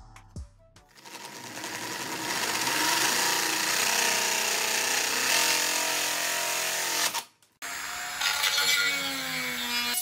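Cordless drill boring through a PVC pipe wall and plastic bottle, a steady cutting noise that starts about a second in and stops abruptly near 7 seconds. After it a high-speed rotary tool with a grinding stone runs against the edge of the hole, smoothing it.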